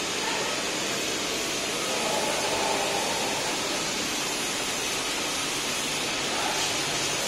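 Steady hiss of a sheet-metal laser cutting machine at work, with faint brief tones rising out of it a couple of seconds in and again near the end.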